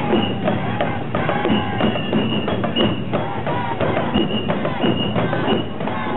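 Oeshiki procession music: uchiwa-daiko fan drums and gongs beaten in a fast, dense rhythm, with a high bamboo flute playing held notes over them.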